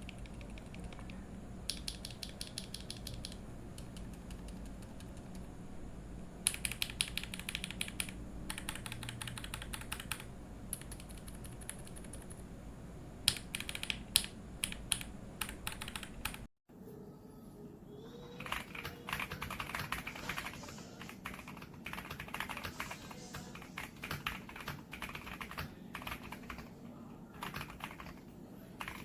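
Typing on a mechanical keyboard fitted with LongWind WS switches: bursts of rapid keystrokes, then after a sharp cut about halfway through, a stretch of steadier, nearly continuous typing.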